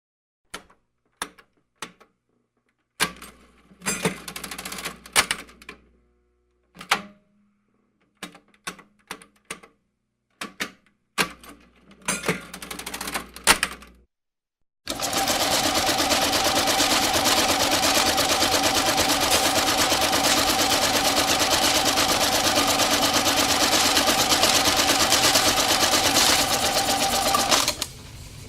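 Mechanical adding machine: scattered key clicks and short clattering mechanism cycles for about the first half, then a continuous fast mechanical rattle with a steady hum that cuts off abruptly near the end.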